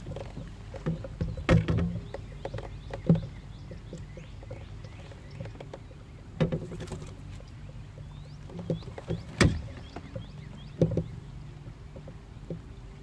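Knocks and clicks of fishing gear handled against a plastic fishing kayak's hull, several sharp ones spread through, over a low steady hum. Faint short bird chirps sound now and then.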